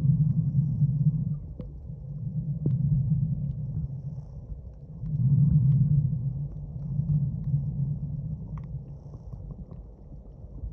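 Underwater ambience picked up by a submerged phone: a low, muffled rumble that swells and fades every couple of seconds, with a few faint clicks.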